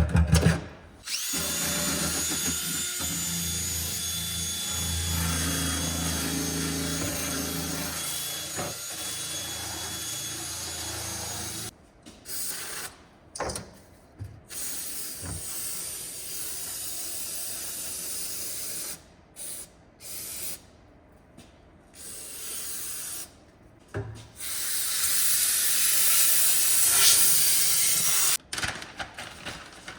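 Handheld power drill running, first in one long run of about ten seconds, then in a string of short on-and-off bursts, and near the end in a louder, hissier run of a few seconds, as it is used to clean old sealant and grime off the tank well.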